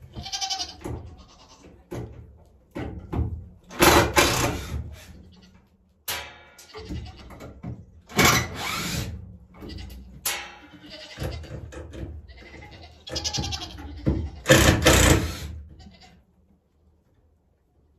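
Goats bleating over and over, one call after another, with the loudest calls about four, eight and fifteen seconds in. The calls die away near the end.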